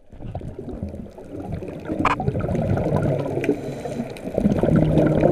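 Underwater recording of scuba divers' exhaled bubbles and water movement: muffled gurgling and crackling, with a sharp click about two seconds in.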